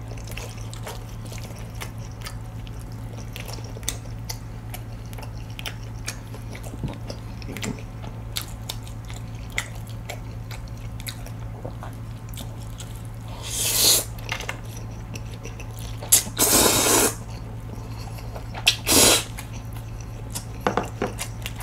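Close-miked mouth sounds of a person eating jjajangmyeon noodles: soft wet chewing with many small clicks, and three louder slurps of noodles in the second half.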